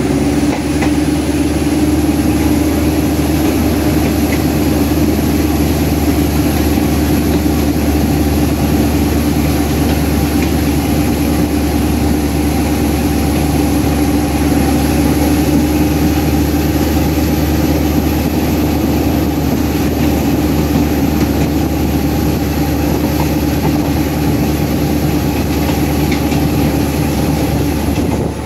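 Alsthom diesel-electric locomotive No. 4218's engine working hard under power, heard from beside its cab. A steady heavy drone carries a high whine that climbs over the first couple of seconds, holds, and drops away at the very end.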